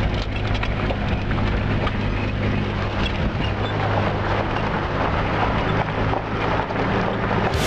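Off-road vehicle driving on a rough dirt mountain track: a steady engine hum with tyre and road noise and small rattles, heard from inside the cab.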